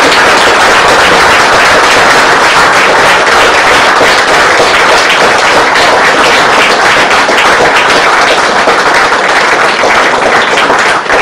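An audience applauding, many hands clapping loudly and steadily.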